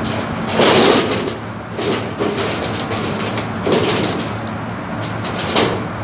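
Steady low hum of rooftop HVAC machinery, broken by four brief bursts of noise, the first the loudest.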